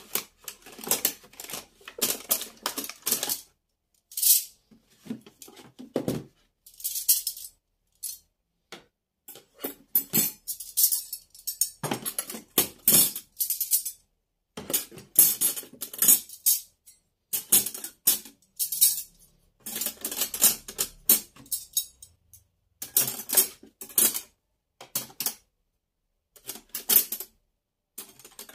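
Household objects being handled: clattering and clicking in short bursts of about a second or two, with dead silence between them.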